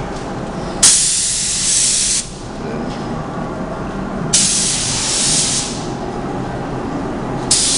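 Paint spray gun spraying tinted non-sanding grey sealer in trigger-pulled passes: two bursts of spray about a second and a half long, each starting and stopping sharply, and a third starting near the end.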